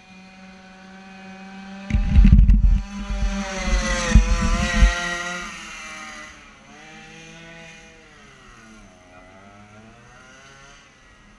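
Small two-stroke strimmer engine on a go-kart idling, then revved hard about two seconds in. It drops back after a few seconds and rises and falls again more gently.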